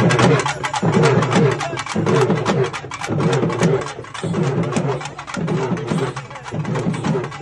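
Fast, steady drumming from procession drums, with a crowd of men chanting in short phrases repeated about once a second.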